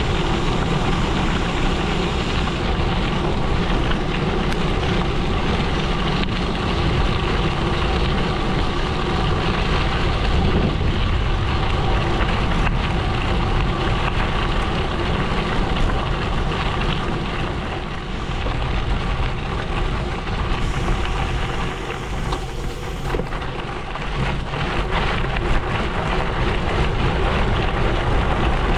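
Gravel bike tyres rolling over a gravel road: a steady crunching hiss that eases a little past the middle.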